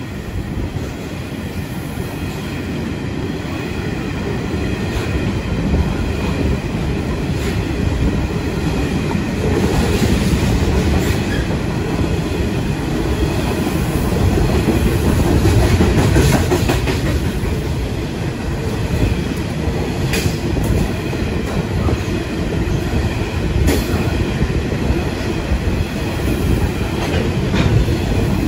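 Freight train of hopper wagons rolling past close by: a steady rumble of wheels on rail with clickety-clack over the rail joints and occasional sharper knocks.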